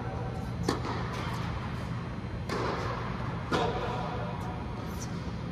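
Tennis balls struck by rackets and bouncing on the court in a rally: three sharp pops in the first four seconds, with fainter taps between them, over a steady low hum.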